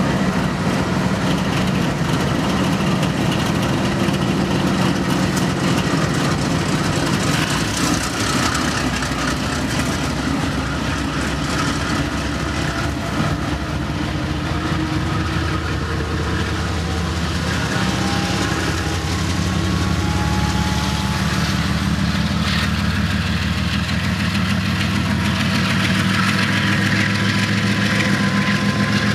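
Several BNSF diesel-electric freight locomotives passing close below, their engines running under power. The engine note climbs steadily in pitch through the second half as they rev up.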